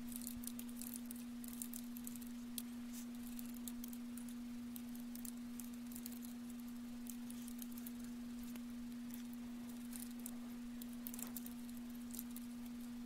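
Faint computer keyboard typing: quick light key clicks in uneven runs, over a steady hum.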